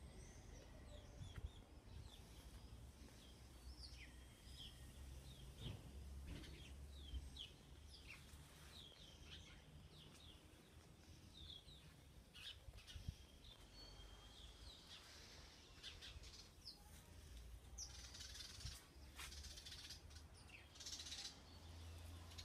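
Small songbirds chirping faintly in short, high notes scattered throughout, over a low rumble, with a few brief bursts of rustling noise near the end.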